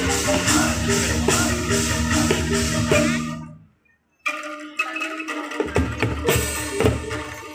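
Tek-tek (kentongan) ensemble playing: pitched bamboo instruments ring out a repeating pattern over drums and quick percussion strokes. The music fades out about three and a half seconds in, goes silent for about half a second, then starts again.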